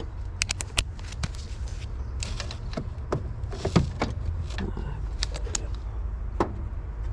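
Scattered clicks and light metallic clinks of hand tools working on fasteners and parts around the alternator, over a steady low rumble.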